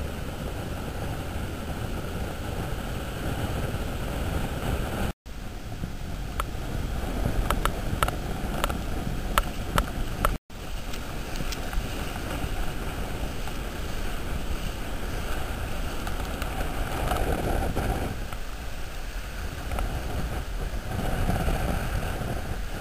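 Wind rushing over the microphone with surf washing over a shallow beach. A run of sharp clicks comes about six to ten seconds in, and the sound cuts out briefly twice.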